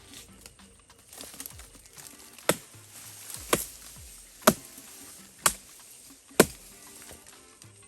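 Chopping strokes of a blade cutting into an oil palm's fruit bunch to free it from the tree: five sharp blows about a second apart, starting about two and a half seconds in.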